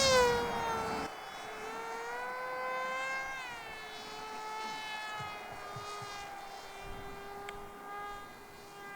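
Electric motor and propeller of a ZOHD Orbit Neon foam flying wing in flight: a high whine whose pitch rises and falls as the throttle changes and the plane passes. It is loudest in the first second, then fainter and lower in pitch.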